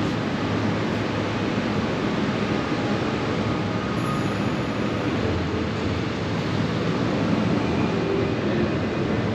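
Steady, even room noise of a large indoor hall, a low hum and hiss with no distinct event.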